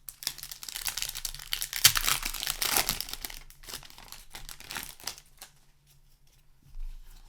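Plastic wrapper of a Magic: The Gathering set booster pack crinkling and being torn open: dense crackling for about five seconds, loudest in the middle, then dying away.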